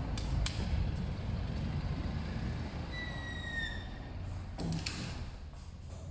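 Glass entrance door being opened and swinging shut. There are latch clicks near the start, a short high squeak about halfway, and a clack about three-quarters of the way through. Under it runs a low rumble of street traffic that fades as the door closes.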